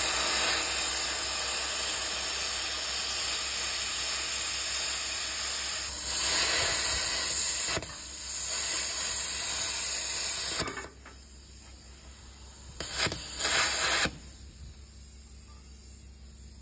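Plasma cutter cutting through steel rebar: a loud, steady hiss of the arc and air jet, which dips briefly about eight seconds in and stops just before eleven seconds. One more short burst of cutting follows about two seconds later.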